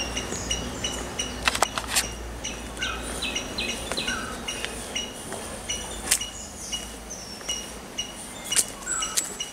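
Birds chirping: short high calls repeated over and over, overlapping one another. A few sharp clicks stand out, twice close together about a second and a half in and again around six and eight and a half seconds.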